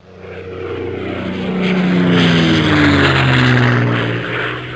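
Propeller airplane flying past: the engine drone swells to a peak and its pitch falls as it passes, then it fades away.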